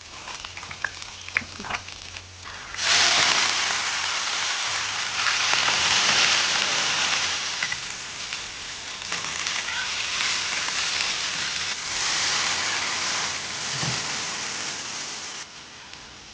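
Food hitting hot oil in a wok and sizzling, starting suddenly about three seconds in after a few light clicks and cutting off shortly before the end.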